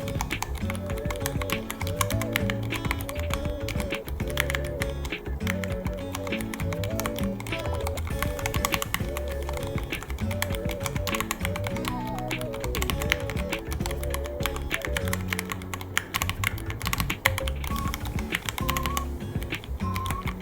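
Continuous rapid typing on a Ducky One 3 mechanical keyboard, a dense, uneven patter of key clicks, over background music with a melody and a steady beat.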